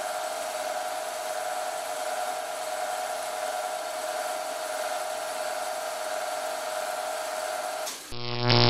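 Milling machine spindle running at high speed while a 1 mm drill bit bores a small steel pin, a steady whine with a fixed pitch. Near the end it cuts out as the mill's 110-volt motor pops the breaker, followed by a loud low buzz.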